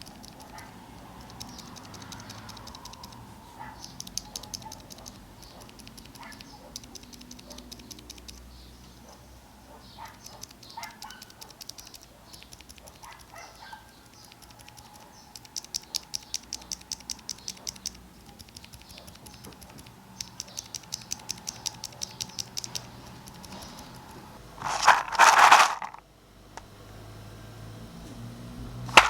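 ZealPC Zilents V2 62g silent tactile mechanical keyboard switches being pressed repeatedly, in quick runs of short, soft clicks, comparing a stock switch with a lubed and filmed one. About 25 seconds in, a loud rough noise lasts about a second.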